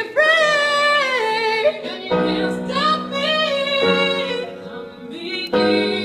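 Music: a woman singing long held notes that slide in pitch, joined about two seconds in by sustained keyboard chords.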